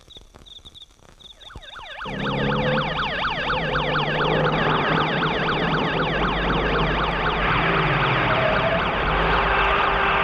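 Faint crickets chirping, then about two seconds in an ambulance siren starts with fast, repeating up-and-down wails, and vehicle engines run underneath.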